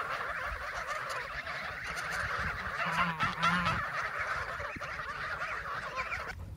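A flock of geese honking and gabbling, many calls overlapping, cutting off abruptly just before the end.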